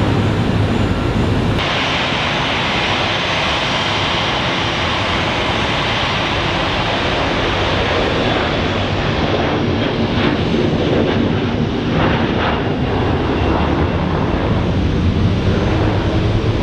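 Jet airliner engines at takeoff thrust: a loud, steady roar that changes abruptly about a second and a half in, its high hiss dulling in the second half.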